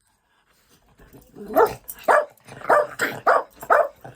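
Dog barking excitedly, a rising yelp about a second and a half in, then a quick run of short, loud barks.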